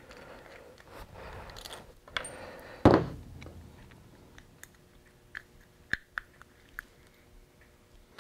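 Screwdriver scraping and turning in the fasteners of a Honda CBR600RR gerotor oil pump, with one sharp clack about three seconds in and a few light metal clicks later as the pump is taken apart.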